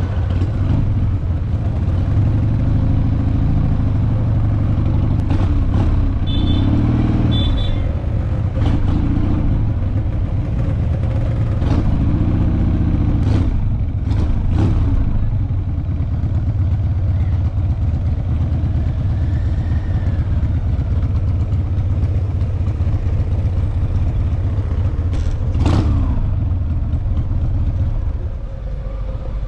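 Motorcycle engines running with a steady low rumble; the revs rise and fall a few times. There are a few sharp clicks, and the sound fades out near the end.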